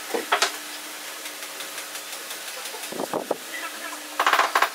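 Small knocks and clicks from handling a wooden tray assembly and turning a metal eye bolt into its top, with a brief fast rattle near the end, over a steady low hum.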